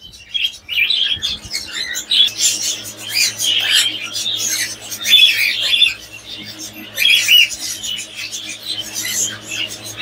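Caged parrots chirping and squawking in many short, irregular calls, with a low steady hum coming in about two seconds in.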